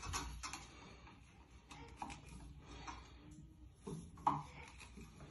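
Light, faint clicks and knocks of closet-frame tubes being handled and pushed into plastic connectors, with a louder knock about four seconds in.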